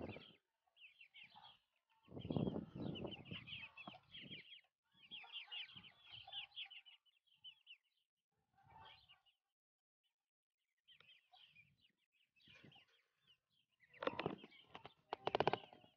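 A flock of month-and-a-half-old Dakan fighting-breed chicks peeping in short, high bursts, with lulls between. Twice, about two seconds in and near the end, lower, louder clucking comes in.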